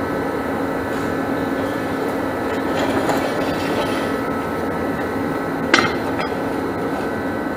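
A steady mechanical drone with a hum and a thin high whine, like a machine running, with one sharp metallic click about six seconds in.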